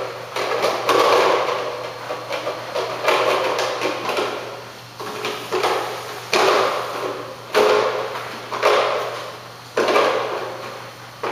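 Chimpanzee making noise with a red plastic box held to its mouth: a run of sharp, resonant sounds about once a second, each fading before the next.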